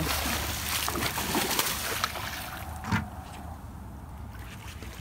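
A hooked fish thrashing and splashing at the water's surface for about three seconds, with one sharp slap near the end of the splashing, then quieter water, over a steady low rush of spillway water.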